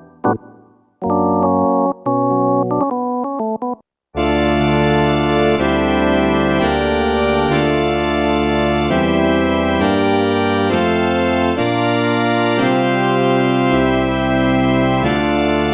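Roland D-20 Linear Arithmetic synthesizer being played: a few short, detached chords, then, about four seconds in, an organ-like patch holding chords that change every second or so.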